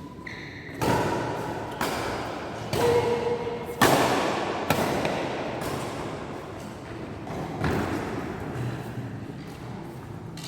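Badminton rally: sharp racket strikes on the shuttlecock about a second apart, about seven in all, each echoing in a large hall, with brief shoe squeaks on the court between them.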